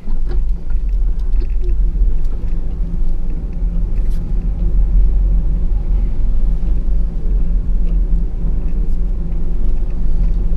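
Dodge Power Wagon pickup's V8 engine running as the truck crawls slowly along a snowy trail: a steady low rumble with a few faint ticks.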